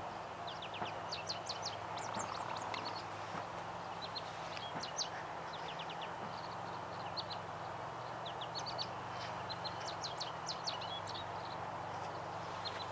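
Male American goldfinch singing: a rambling song of rapid, high twittering notes in several phrases, with a pause of a few seconds midway. A steady low hum and wind noise sit underneath.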